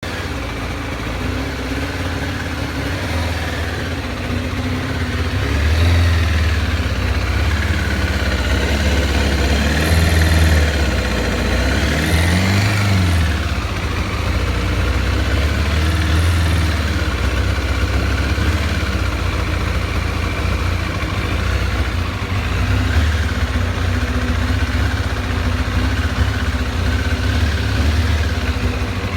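2007 Kawasaki ZZR600's inline-four engine at a rough idle, its speed swelling and falling unevenly several times, the sharpest a quick rise and fall about twelve seconds in. The uneven idle is the fault the owner is trying to trace.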